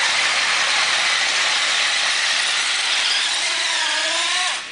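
Radio-controlled pulling truck running flat out while it drags a weight sled, making a steady high-pitched whirring hiss. The sound cuts off abruptly near the end.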